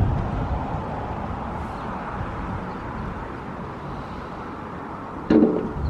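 Wind gusting across the microphone, a low rumbling buffet that eases off through the middle. A short, loud pitched sound breaks in near the end.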